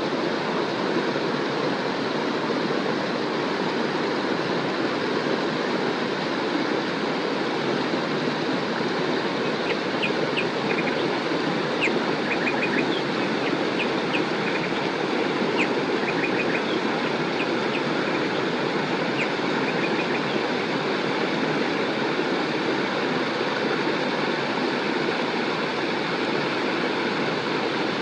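River water rushing steadily, with short high bird chirps scattered through the middle stretch.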